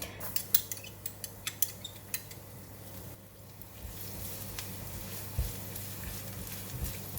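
Utensil clicking and scraping against a dish and pan as chopped garlic goes into hot oil. About four seconds in, a steady sizzle of the garlic frying comes up.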